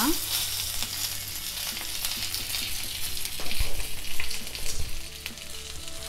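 Chicken seekh kebabs on bamboo skewers sizzling in oil in a nonstick frying pan, with a few light knocks about halfway through.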